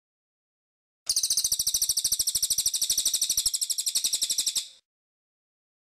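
Cililin, an Indonesian songbird, singing one long, fast trill of high notes repeated about a dozen times a second. It starts about a second in and stops abruptly near the end.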